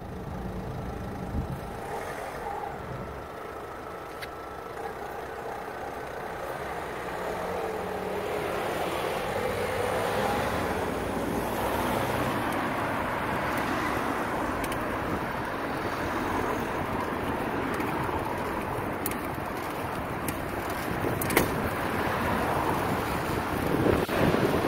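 Steady street traffic noise heard from a moving bicycle: a rush of cars and tyres that grows a little louder along the way, with a couple of sharp clicks near the end.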